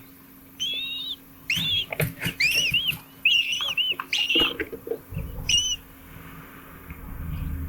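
A bird giving a run of short, wavering high calls mixed with a few clicks for about five seconds. A low rumble takes over after that.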